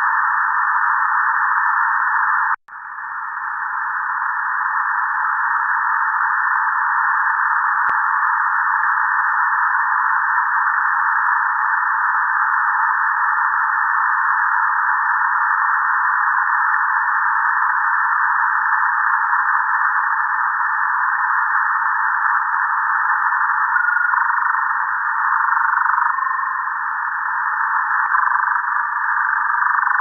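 Shortwave radio static heard through a web SDR receiver on 6660 kHz in lower sideband with a narrow filter: a steady, loud hiss squeezed into a narrow band. It cuts out for an instant just under three seconds in and swells back. Faint short whistling tones step up and down through the hiss in the last few seconds.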